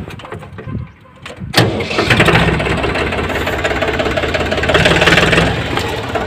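Force Orchard DLX LT tractor's diesel engine being started: a short spell of starter cranking, then it catches about a second and a half in and runs steadily.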